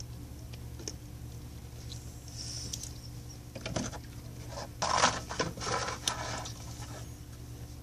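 Rustling and crinkling as a cardboard snack box is grabbed and handled, with a louder crackly burst about five seconds in, over a low steady hum.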